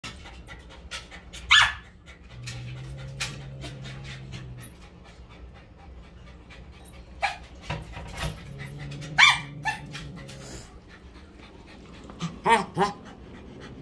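Dog whining several times in short high cries, with panting between them. A low steady drone comes in twice.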